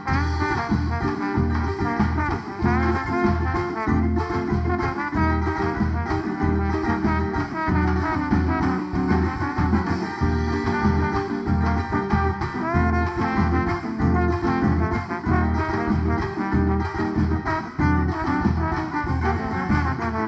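Instrumental break in a live band's song: a lead melody played over bass and a steady, busy percussion beat, with no singing.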